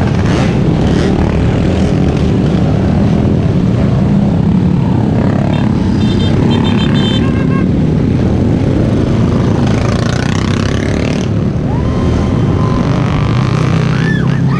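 Several motorcycle engines, many of them dirt bikes, running together as a line of motorcycles rides past, with a few short higher-pitched tones mixed in.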